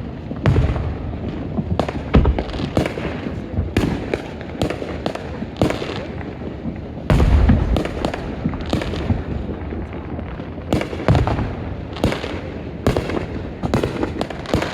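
Fireworks going off in a dense, irregular barrage of sharp cracks and bangs, with several deeper booms from larger bursts.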